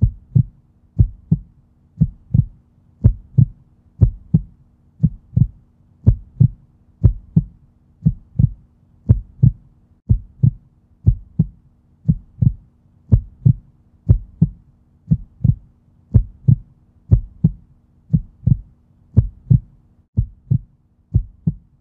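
Heartbeat sound effect: paired low thumps, about one lub-dub a second, over a faint steady low drone. The last few beats are a little softer.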